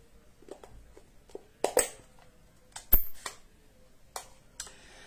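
Light taps and clicks of paper-craft supplies being handled on a tabletop, a few scattered knocks with one sharper click about three seconds in.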